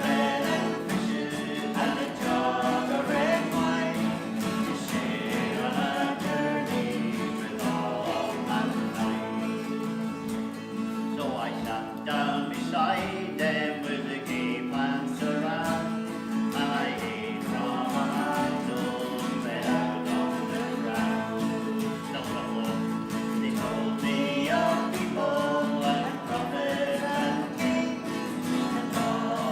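Background music: acoustic guitar strumming with singing voices.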